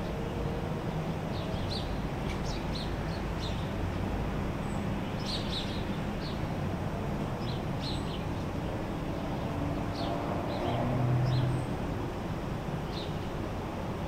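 Steady hiss of a hotel ventilation system with small birds chirping in short, scattered calls. A road vehicle passes, briefly louder, about eleven seconds in.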